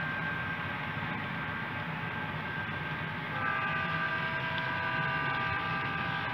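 HO scale model freight train rolling past, its cars' wheels giving a steady rumble and hiss on the track. About three seconds in, a steady high ringing of several tones joins and holds.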